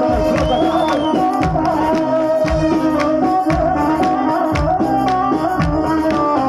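Loud Egyptian sha'bi wedding music: a held melodic lead over a steady drum beat at about two strokes a second.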